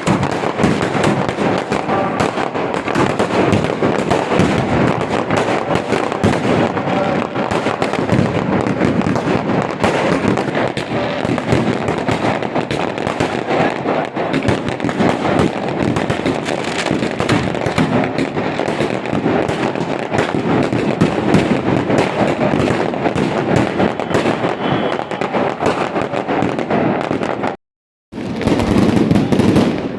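Firecrackers and fireworks going off in a dense, continuous barrage of overlapping cracks and bangs. It breaks off for a moment near the end, then resumes.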